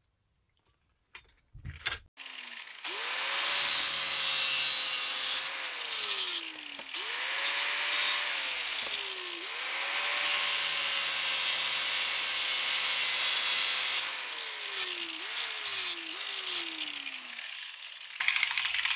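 Corded angle grinder spinning up and grinding down spot-welded steel brackets on a headlight ring, with a harsh grinding hiss. Its motor pitch sags as the disc bites and climbs again each time it is eased off, several times over, until it winds down near the end.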